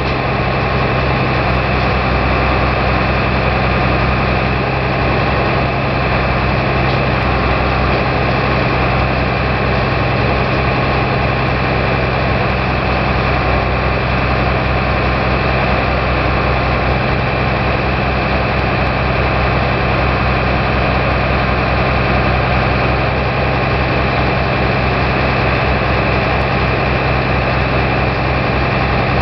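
Forestry tractor's diesel engine running steadily at a constant speed, driving the hydraulic loading crane on its timber trailer.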